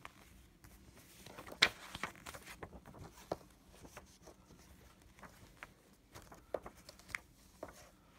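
Faint handling of a folded paper leaflet: scattered small clicks and rustles as it is held and turned, with one sharper tap about a second and a half in.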